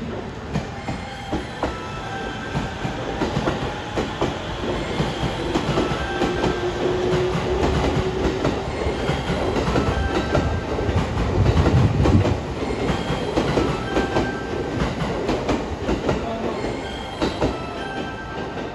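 E231-series electric commuter train pulling out and running away down the line, its wheels clicking over rail joints and points, loudest about 11 to 12 seconds in.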